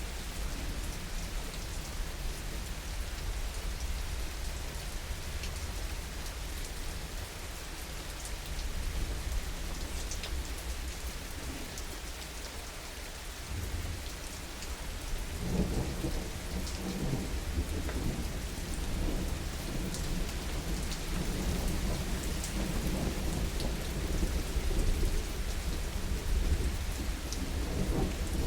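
Heavy rain falling steadily, with fine pattering drops. About halfway through, thunder starts rolling in as a low rumble and builds toward the end.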